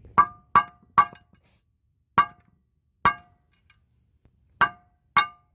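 Hammer tapping a metal pin into a new semi-truck brake shoe: seven sharp metallic strikes with a short ring, three quick ones, then four more spaced out.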